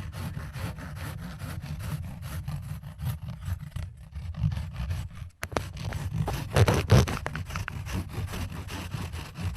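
Saw cutting with rapid back-and-forth strokes, close to the listener's ear, staged as sawing open the listener's skull. The strokes pause briefly about five seconds in, then go on louder.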